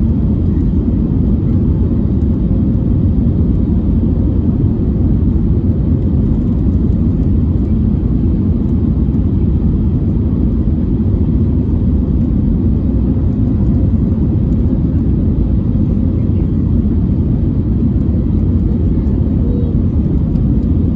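Steady cabin noise inside an Airbus A320neo (A320-251N) on approach, heard from a window seat over the wing: the deep, even hum of its CFM LEAP-1A engines mixed with the rush of air over the extended flaps.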